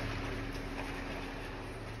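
Steady low hum under an even hiss: the background machinery noise of an indoor ice rink.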